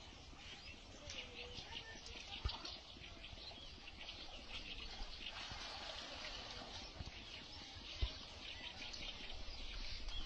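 Birds chirping over steady outdoor background noise, with two short knocks, the louder one about eight seconds in.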